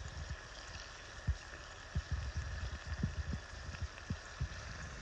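Cast-iron Dutch oven boiling over a wood fire: a steady bubbling hiss, with soft low thumps every second or so.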